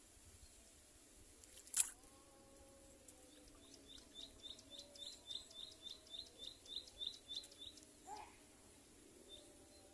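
A bird giving a run of short, evenly spaced high chirps, about four a second for some four seconds, over faint outdoor background. A single sharp click comes before the chirps, and a short lower call near the end.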